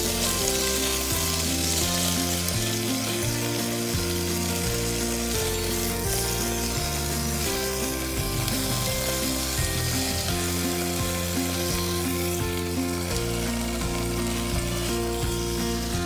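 Chicken pieces and lettuce sizzling in a non-stick camping frying pan, with steady frying hiss. Background music with a stepping bass line plays throughout.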